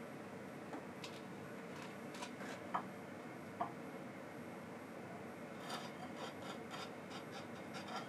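Light clicks and taps from small objects being handled on a workbench, with two brief squeaks near the middle and a quicker run of clicks in the last few seconds, over a steady low hum.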